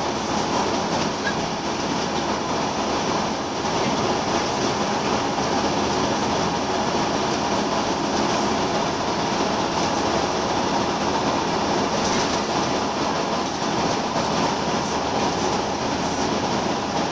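Scania L94UB Wright Solar single-deck bus heard from inside the saloon while under way: its rear-mounted engine and road noise make a steady, loud noise with no let-up.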